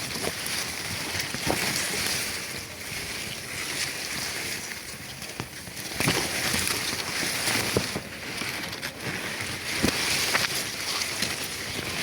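Weed sprayer hissing steadily as it sprays, swelling and easing, with scattered light knocks.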